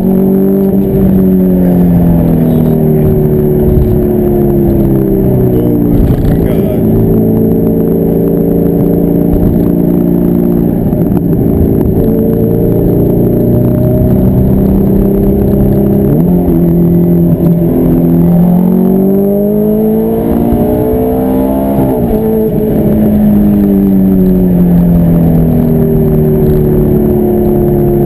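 Ferrari F430's V8 running through a Tubi cat-bypass exhaust, heard from inside the cabin while driving. Its note climbs and falls with the throttle and drops at gear changes.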